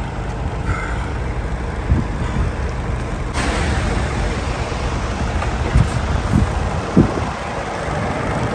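Semi-truck tractor's diesel engine running steadily, with a hiss that comes on suddenly about three and a half seconds in and stays, and a few dull knocks.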